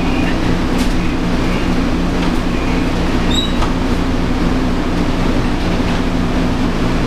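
Steady low mechanical hum of a running machine, with a few faint clicks.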